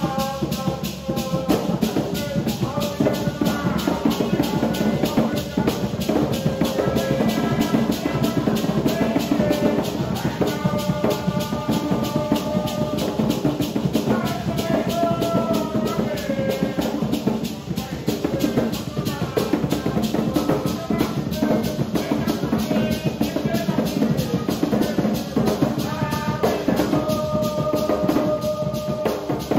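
Live Garifuna drumming: two hand drums played in a fast, dense rhythm, with maracas shaking and a group of voices singing a melody over them.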